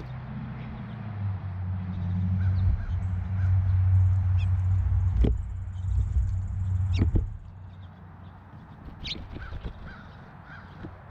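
Outdoor feeder ambience: a low, steady rumble that stops abruptly about seven seconds in, two sharp knocks, and faint short bird calls repeating in the background.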